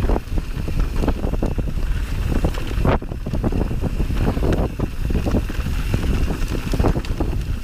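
Wind buffeting the action-camera microphone as a mountain bike rides along a rough dirt trail, with frequent rattles and knocks from the bike jolting over the ground.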